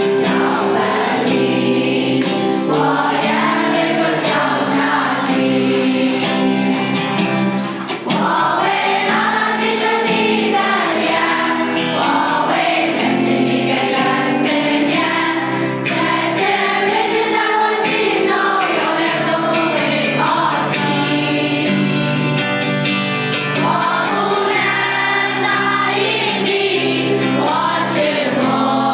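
A choir of voices singing together, with a brief drop in level about eight seconds in.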